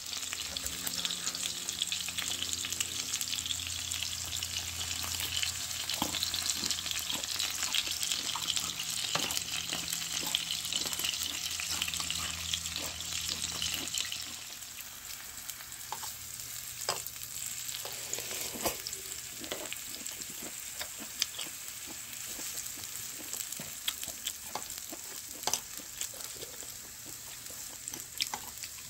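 Whole beef large intestines (daechang), mushrooms and onion sizzling in rendered fat on a small tabletop grill pan, with occasional clicks and scrapes of metal tongs on the grill. The sizzling is louder for the first half, with a low hum under it that stops about halfway through.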